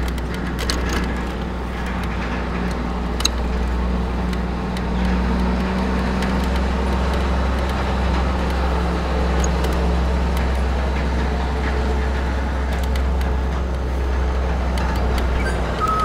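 Steady wind rush and low rumble on a helmet-mounted camera's microphone while riding a hired electric bike, with road and tyre noise underneath and a faint hum.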